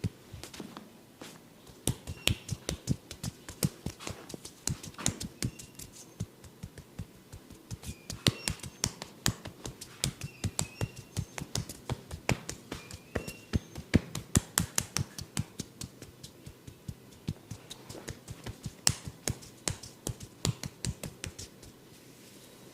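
Hands rapidly tapping and slapping the head and neck in a barber's head massage: a quick, uneven run of sharp strikes, several a second, that stops shortly before the end.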